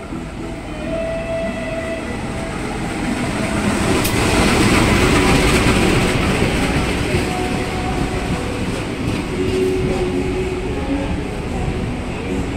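Passenger train rolling into the station platform: a rumble and rail clatter that swells about three seconds in and stays loud as the coaches pass.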